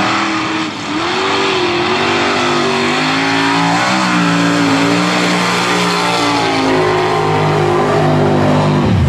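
Mud truck's engine running hard at high revs as it churns through a mud pit, its pitch wavering up and down as the tyres bite and spin, over the hiss of spraying mud and water. The revs fall away near the end.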